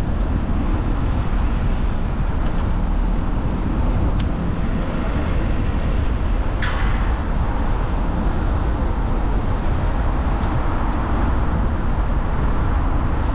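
Steady road traffic noise from cars and buses passing on a multi-lane city road, heard from a moving bicycle with heavy low rumble. A short high squeak cuts through about seven seconds in.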